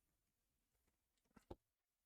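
Near silence: room tone, broken by two faint short clicks a tenth of a second apart about one and a half seconds in.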